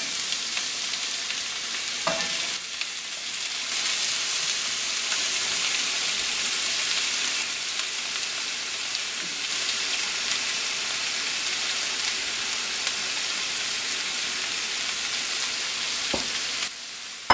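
Cut green beans sizzling in hot coconut oil as they are dropped into the pan by hand, a steady frying hiss. The sizzle stops suddenly near the end.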